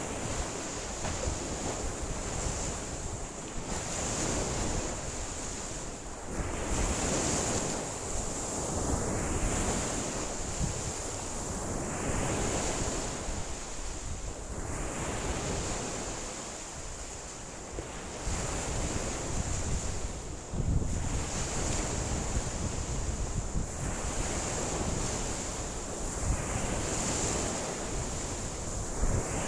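Lake waves washing onto the shore in strong wind, the wash swelling and falling every couple of seconds, with wind buffeting the microphone as a low rumble. A steady high-pitched hiss runs underneath.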